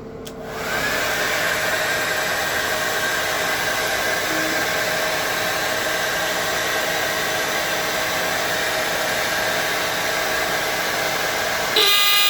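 Handheld hairdryer switched on, spinning up and blowing steadily as it heats the heat sensor of a Royalarm fire and burglar alarm. Near the end the alarm trips from the heat and sounds with a loud, steady pitched tone.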